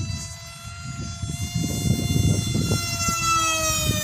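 Brushless electric motor of a handmade RC Sukhoi jet model whining steadily in flight, its pitch dropping in the last second or so as the plane passes. An irregular low rumble, typical of wind on the microphone, runs underneath.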